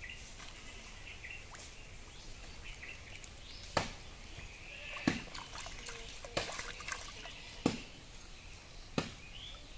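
Short, sharp water splashes, five of them about a second and a quarter apart from a few seconds in, as hooked catfish thrash at the surface on lines tied to bamboo poles. Faint bird chirps sit behind them.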